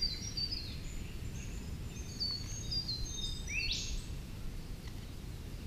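Wild birds calling in the bush: a run of short, high, falling chirps, and one quick rising whistle about three and a half seconds in, over a low steady rumble.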